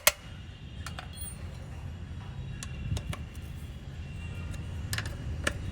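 Scattered light metallic clicks and clinks of an Allen key and hand tools working on a motorcycle's rear brake caliper bolt, the sharpest click right at the start, over a steady low hum.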